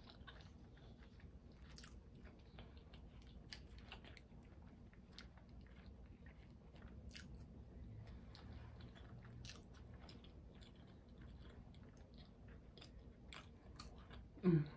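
Close-up chewing and biting of McDonald's chicken nuggets, with scattered small sharp mouth clicks.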